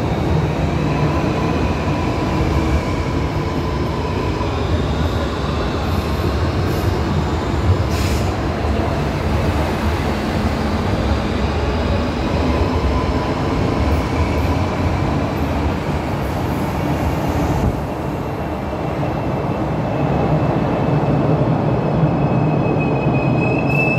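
Madrid Cercanías electric commuter train running along an underground platform and into the tunnel. It makes a steady, loud rumble of wheels on rail with faint thin squealing tones over it, echoing in the enclosed station. The rumble dips briefly about three-quarters of the way in, then swells again as the last car goes into the tunnel.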